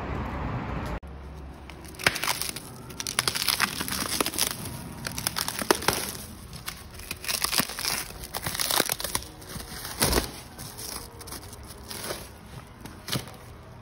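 Plastic wrapping crinkling and crackling irregularly as it is handled, with many sharp clicks. A steady low hum in the first second cuts off abruptly.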